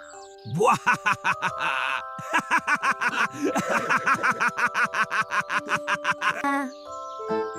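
Cartoon soundtrack: background music under a fast run of short, sharp sound-effect hits at about five a second, with brief squeaky, bleating character vocal noises.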